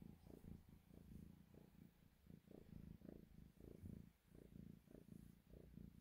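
Tortoiseshell kitten purring while her chin is scratched: a faint, low, rhythmic rumble that pulses a couple of times a second.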